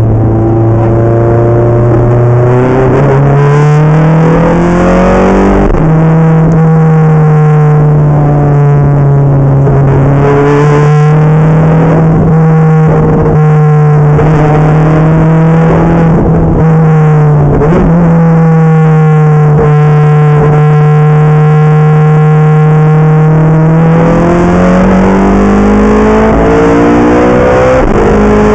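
Ferrari F430 F1's V8 engine heard from inside the cabin, running hard on track. The pitch climbs over the first few seconds, jumps higher about six seconds in, holds fairly steady with a brief dip and recovery about two-thirds through, then rises again near the end.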